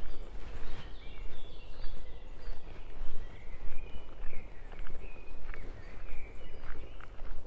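Footsteps of someone walking a forest path, with songbirds giving short chirping phrases throughout over a steady low rumble.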